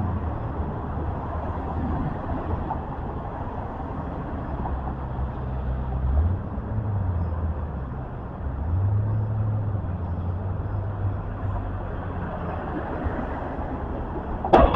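A motor vehicle's engine running in the street, its low note rising twice and settling back, under general street noise. Sharp cracks sound right at the very end.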